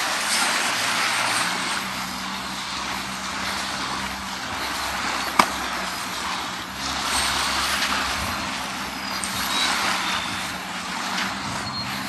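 Small waves washing onto a sandy beach, swelling twice, over a steady low engine hum. A single sharp click about five seconds in.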